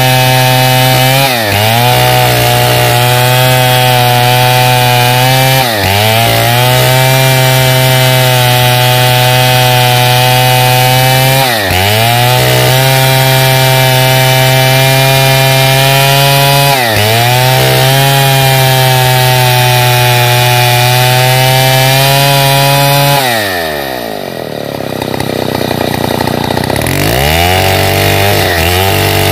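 Stihl 070 two-stroke chainsaw running at full throttle as it rips lengthwise along a pine log. The engine note dips briefly four times and picks back up. About 23 seconds in the revs fall away to a low speed and then climb back up near the end.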